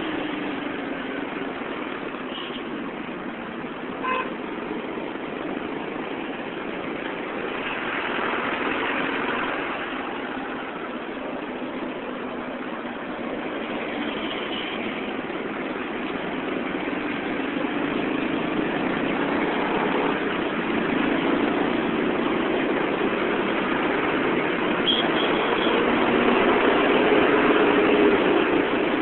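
Dense road traffic heard from a moving motorcycle: engine noise from the bike and the surrounding motorcycles, cars and trucks, with a short horn beep about four seconds in and brief toots later. The traffic grows louder toward the end.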